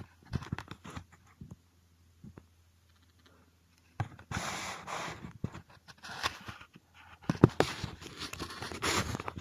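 Hands working on an industrial sewing machine's presser-foot mechanism: scattered clicks and taps, then bursts of scraping and rustling from about four seconds in and again near the end.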